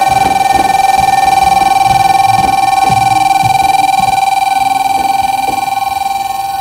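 Electric station departure bell on a railway platform, ringing continuously at one steady pitch.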